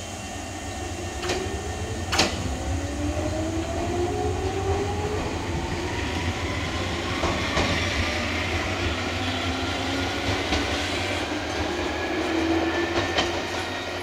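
Chichibu Railway 7500-series electric train pulling away and accelerating. Its motor whine rises steadily in pitch over a low rumble of wheels on rail, with two sharp clacks about one and two seconds in.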